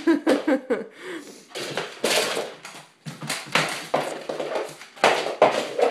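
Ibizan hound scrabbling and playing on a hardwood floor: a string of irregular scrapes, knocks and scuffles from paws and an object being pushed around.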